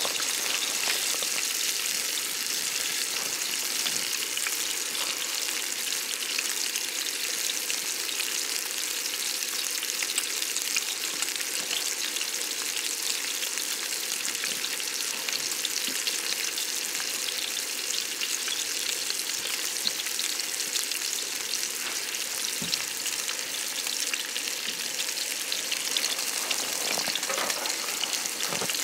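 Wood fire crackling and hissing in a small folding fire pit: a steady hiss with many tiny scattered pops.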